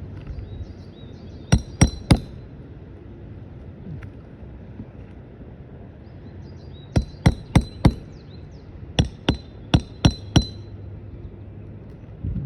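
Hammer blows with a ringing metallic clink, twelve in three quick groups of three, four and five, as roofing nails are worked out from under asphalt shingles. Birds chirp faintly between the blows.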